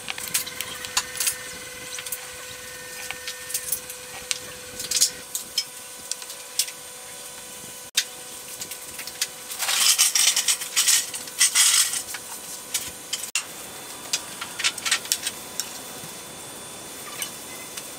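Small clicks, taps and scrapes of hand tools handled on a wooden block: a steel ruler and square set against the wood and a pencil drawing marks, with a denser stretch of scratching about ten seconds in. A faint steady whine sits underneath.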